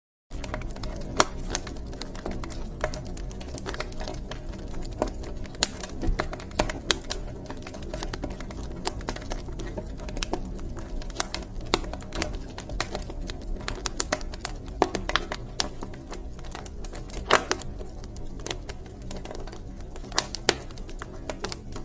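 Wood fire in a fireplace burning, with irregular sharp crackles and pops over a steady low rumble of the flames. It starts just after a brief moment of silence.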